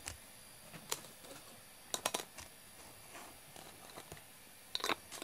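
Light, sharp clicks and taps of a glass jar being handled on a wooden floor, single taps early and small clusters of quick clicks about two seconds in and near the end.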